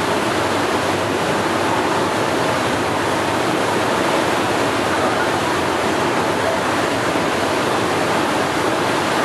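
Boeing 929 Jetfoil hydrofoil running foilborne at speed: a steady, even rush of its waterjet spray.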